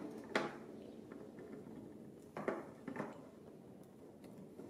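Faint handling of a cable and plastic cable ties, with a few sharp clicks, one near the start and a couple more around the middle.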